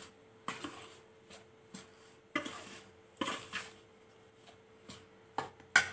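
A steel ladle stirring and scraping flour dough in a stainless steel bowl as hot water is worked in. It gives irregular clinks and short scrapes, with the sharpest clink near the end.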